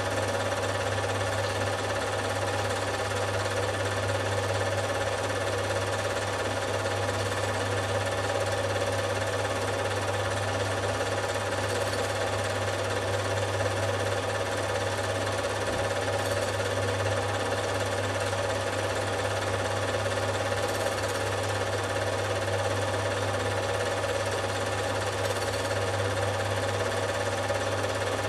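Film projector running: a steady mechanical clatter of the film transport over a constant low motor hum.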